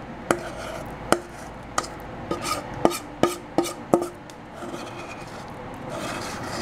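A metal utensil scraping and knocking a moist Oreo-crumb and margarine crust mixture out of a stainless steel mixing bowl into a glass baking dish: a string of sharp knocks, several with a short metallic ring, giving way to softer scraping over the last couple of seconds.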